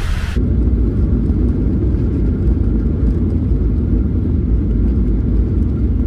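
Steady low rumble of a jet airliner in flight, heard from inside the cabin; it comes in suddenly about half a second in.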